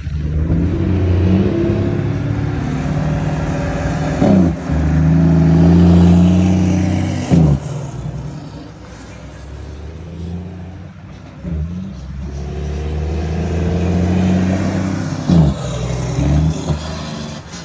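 Volvo FH truck's diesel engine on the engine brake through an aftermarket exhaust: a deep, loud drone that swells and fades twice. Its pitch jumps sharply a few times.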